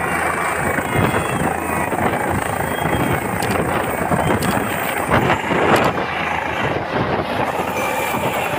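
Helicopter lifting off, its turbine and rotor running loud and steady at takeoff power, with a rapid beat from the rotor blades.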